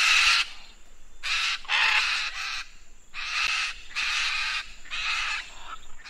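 Macaw squawking: about seven harsh, raspy calls, one at the start and then two runs of three close together.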